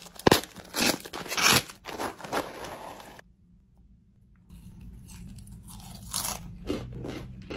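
A crinkly plastic snack bag is torn open and rustled. After a brief pause, Goldfish crackers are chewed with a crisp crunch.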